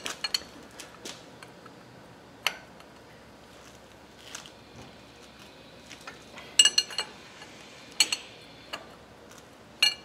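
Steel wrench clinking against the lathe headstock's hold-down nuts and the bed as they are worked loose: scattered sharp metallic clinks with a short ring, one about two and a half seconds in and a quick cluster about two-thirds of the way through.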